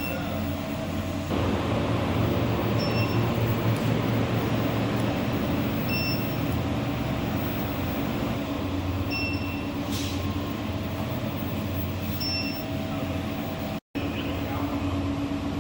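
Induction melting furnace running with a steady electrical hum that gets louder about a second in. A short high-pitched beep repeats about every three seconds.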